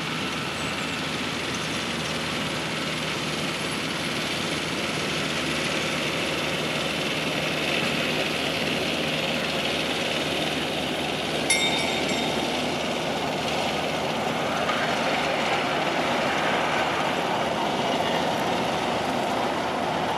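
Miniature park train's locomotive running steadily as it travels past, with one short metallic ring about halfway through.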